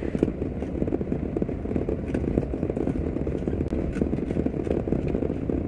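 Car driving slowly, heard from inside the cabin: a steady low rumble of engine and tyres on the road, with frequent small knocks and rattles.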